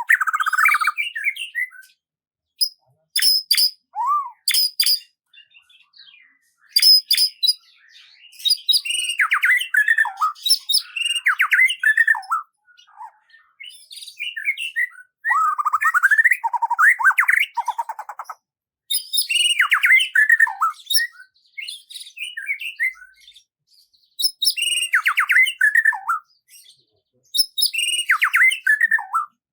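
A songbird singing: phrases of quick falling chirps and trills, repeated about every three or four seconds with short silences between.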